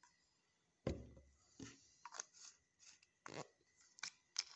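Plastic bottle of floor cleaner being handled: a dull knock about a second in, then a few small clicks and crinkles of the plastic bottle and its dropper cap in the hand.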